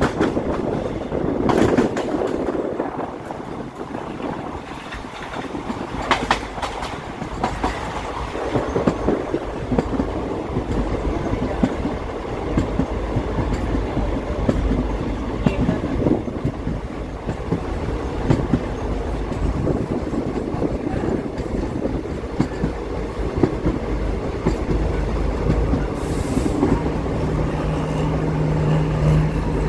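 Passenger coaches of a moving train heard from on board: a steady rumble with the wheels clicking and clacking over rail joints. A steady low hum comes in near the end.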